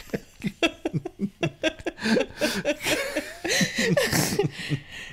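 People laughing in a run of short, breathy bursts.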